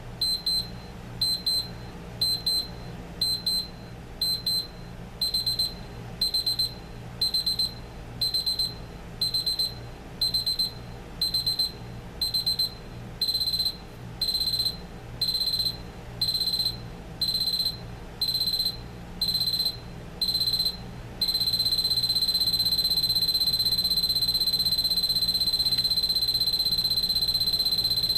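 Elgin 4537E digital alarm clock sounding its loud, stepped alarm: high electronic beeps in short groups about once a second, each group growing longer, until about 21 seconds in they merge into one continuous tone.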